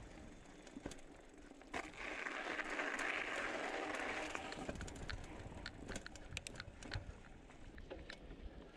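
Mountain bike rolling along a dirt and gravel forest road: tyres crunching over the ground, with many scattered clicks and rattles from the bike. A louder hiss runs from about two to four and a half seconds in, and a low rumble follows.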